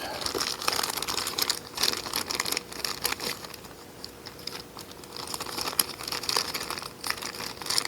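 Plastic parts bags crinkling and rustling as someone rummages through them for crimp terminals, with scattered small clicks.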